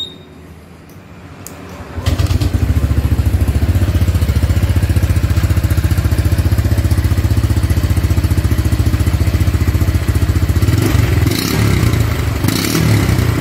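Honda ADV 150's single-cylinder engine starting about two seconds in and then idling with a rapid, even pulse, heard through a chrome 2010 Honda Revo muffler fitted in place of the stock exhaust, with a slightly bassy note. The note turns uneven near the end.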